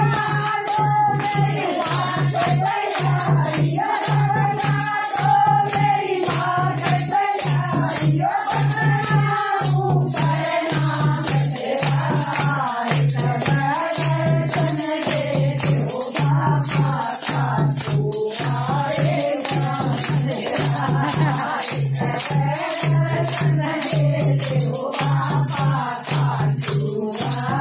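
Group of women singing a Hindi devotional bhajan to Khatu Shyam, with hand-held clappers jingling and hands clapping in rhythm over a steady low drum beat of about two strokes a second.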